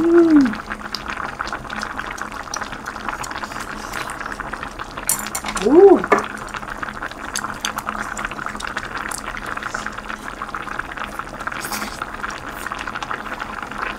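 Tuna kimchi stew bubbling steadily in a pot on a tabletop cooker, a constant crackly simmer. A person hums a short "mm" twice, once at the start and again, louder, about six seconds in.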